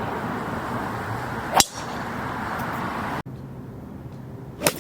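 Two golf shots: a club strikes the ball with a sharp crack about a second and a half in, and again near the end.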